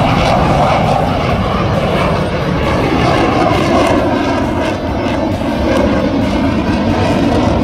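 Fighter jet flying overhead: loud, steady jet-engine noise that stays strong throughout, with only slight swells in level.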